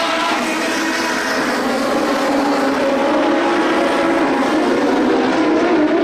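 Several lightning sprint car engines running hard together in a race, their overlapping engine notes rising and falling slightly, growing a little louder about two seconds in.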